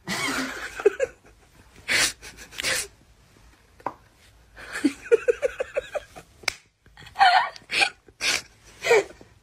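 A person laughing in short breathy bursts, with a quick run of giggles about five seconds in.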